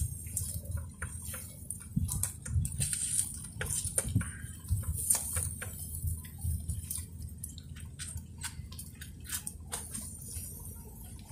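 Irregular small clicks and crackles from fish grilling over glowing charcoal on a wire grill, with a thin stick prodding the fish. A low steady rumble lies underneath.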